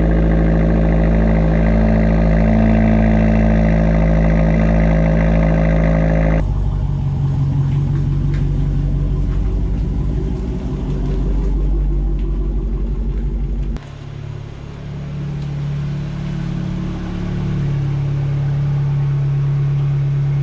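Fiat 124 Spider Abarth's turbocharged 1.4-litre four-cylinder at a steady fast idle just after a cold start, heard at the exhaust tips. About six seconds in it changes abruptly to a deeper engine rumble from the Dodge Challenger Hellcat Redeye's V8 in the garage. About fourteen seconds in it changes back to a quieter steady engine idle, the 124 parked in the garage.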